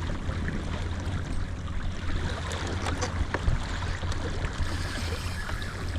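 Steady wash of water and wind noise around a fishing kayak on open sea, with a low rumble and a few small clicks and knocks near the middle.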